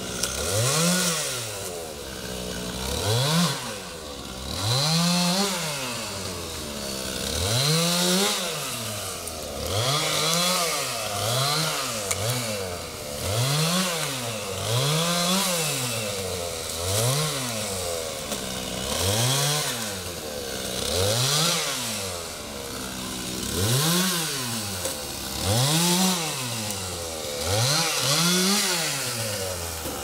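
Gas chainsaw revving up and dropping back over and over, about once every two seconds, as it cuts through the limbs of a felled dead cedar.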